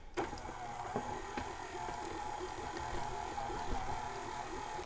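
Electric mixer running steadily at medium speed, beating a thick cream-cheese and marshmallow-creme filling. A steady motor hum that starts and cuts off abruptly.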